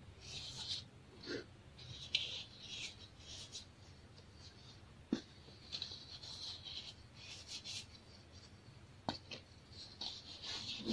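Hands crumbling and squeezing chunks of packed baking soda, a soft gritty crunching and the hiss of powder sifting through fingers, coming in short bursts, with two sharp crackles about five and nine seconds in.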